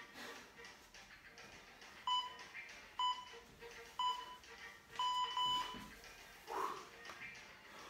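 Workout interval timer beeping a countdown: short electronic beeps about a second apart, starting about two seconds in and ending with two quick beeps, signalling the switch to the next exercise.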